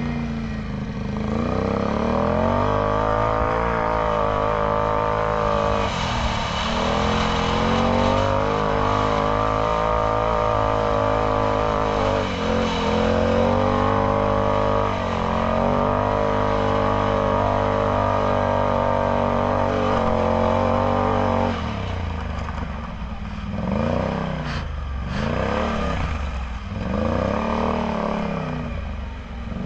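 Can-Am Outlander X MR 850 ATV's V-twin engine, heard through a Yoshimura slip-on exhaust, pulling steadily under throttle with a few brief lifts. About twenty seconds in it drops off to a handful of short revs, each rising and falling.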